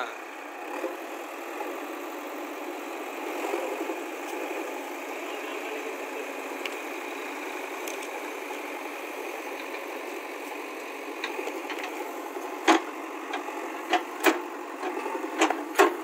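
Diesel engine running steadily, with several sharp knocks in the last few seconds.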